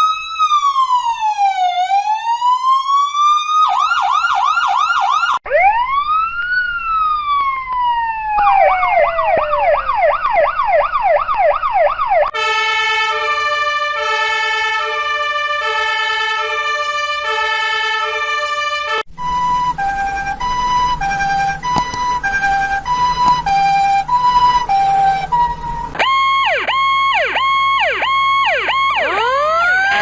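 Emergency-vehicle sirens played one after another. First a slow rising and falling wail, then a fast yelp, another single wail, and a stretch of repeated falling sweeps. Next come two spells of two-tone hi-lo siren alternating between steady notes, the second lower and with a low hum beneath, and near the end a fast up-and-down yelp before a slow wail begins.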